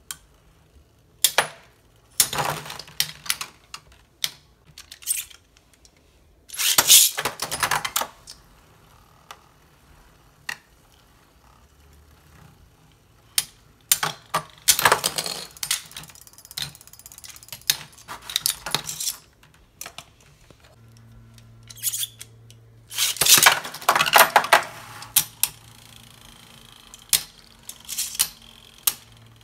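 Beyblade spinning tops clashing in a plastic stadium: bursts of sharp clicking and rattling as the tops collide with each other and the stadium walls, with quieter stretches between.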